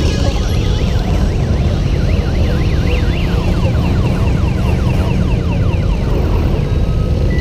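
An electronic siren sweeping rapidly up and down, then in a run of quick falling sweeps, over the steady low rumble of motorcycle engines running.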